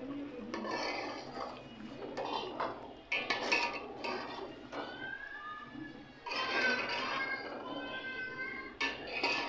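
Metal spoon stirring potato curry in an aluminium pot, clinking and scraping against the pot's side in scattered knocks. A high, wavering pitched call sounds in the background through the middle.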